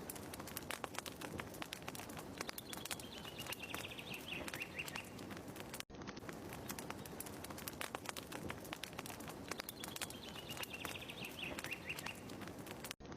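Fire crackling steadily with a bird's call repeating through it: a descending series of quick chirps, twice, about seven seconds apart. The ambience loop cuts out for a split second about six seconds in.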